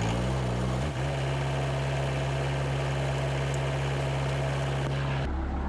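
Bobcat S160 skid steer's diesel engine running steadily for a test run after a hydraulic line repair. Its pitch wavers briefly in the first second. Near the end the sound changes abruptly to a duller engine hum.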